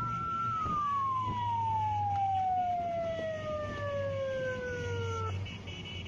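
A siren holding a steady high tone, then sliding slowly down in pitch for about five seconds and cutting off near the end, over a low vehicle engine hum.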